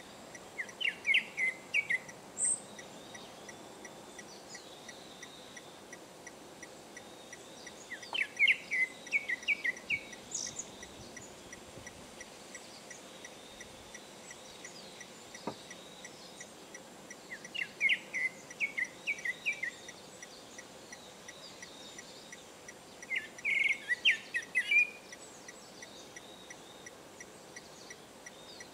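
Male Japanese thrush (kurotsugumi) singing: four short phrases of quick, clear notes, each about two seconds long, separated by pauses of several seconds. A faint steady high-pitched tone runs underneath.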